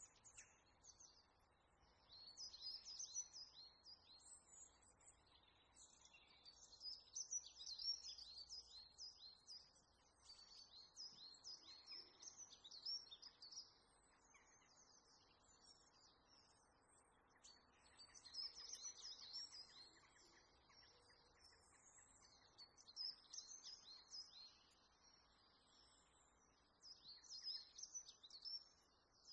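Faint high-pitched chirping and twittering of small birds, in clusters of quick repeated notes that come and go every few seconds.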